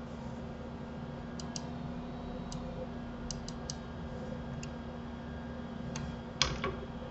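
About ten scattered sharp clicks of a computer mouse and keyboard, the loudest pair near the end, over a steady low hum.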